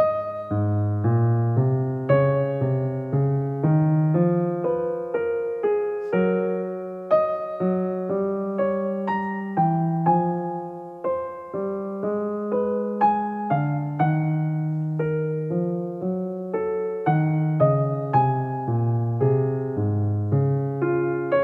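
Background piano music: a slow, even run of struck notes, about one to two a second, each fading away, over held low notes.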